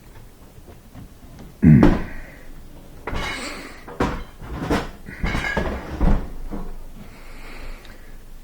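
A series of knocks and clunks, like a cabinet door being shut and panels handled, from the Bosch dishwasher being closed up and readied for a test run after its circulation pump was replaced; the loudest knock comes about two seconds in.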